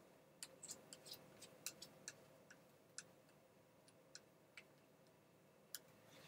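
Faint, irregular clicks of a small screwdriver tip and screws as screws are driven in to fasten a laptop screen to its case. The clicks come several a second at first, then thin out after about three seconds.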